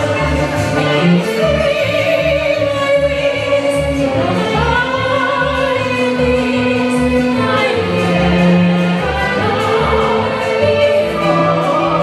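Soprano singing into a handheld microphone over an accompaniment with a steady low beat, holding long notes with vibrato.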